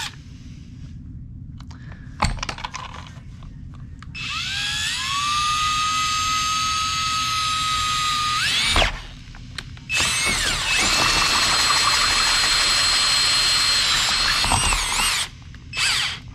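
Cordless drill with a hole saw, set to run in reverse, spinning against a plastic old-work electrical box. After a click about two seconds in, it runs twice, each run several seconds long and the first rising to a steady whine, then gives a few short bursts near the end.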